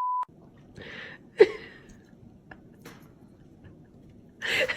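The tail of a censor bleep, a steady 1 kHz tone, cutting off just after the start; then quiet room sound with one sharp click about a second and a half in and a short noisy burst near the end.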